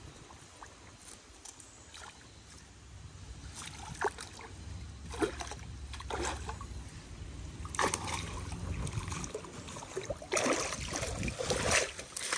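River water splashing as a wire-mesh fish trap is hauled up by its rope. There are a few separate splashes at first, building to heavy splashing and pouring water near the end as the trap comes out of the water.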